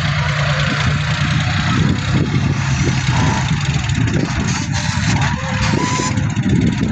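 Diesel tractor engine running steadily at a constant pace while the front loader works.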